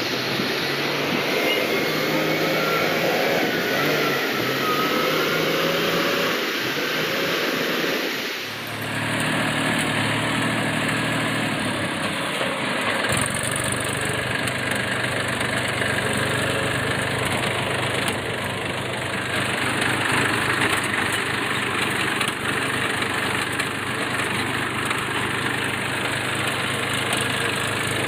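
Diesel engines running steadily. After a cut about eight seconds in, the Massey Ferguson 241 tractor's three-cylinder diesel runs with a steady low hum, heard from the driver's seat as it drives.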